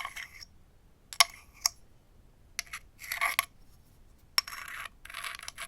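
A stone striking and scraping on slate: several sharp clicks, with short gritty scrapes of the stone dragged across the slate in between.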